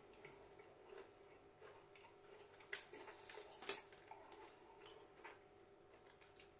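Near silence with faint clicks and crackles from chewing a crunchy cookie and handling its crinkly plastic packet, with two sharper crackles about three and four seconds in. A faint steady hum runs underneath.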